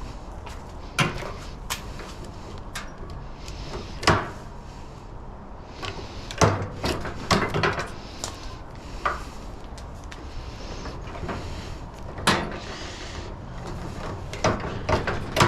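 Irregular clatter of tools and heavy cable being handled: a dozen or so sharp clicks and knocks at uneven spacing, the loudest about a second, four seconds and six seconds in, over a steady low hum.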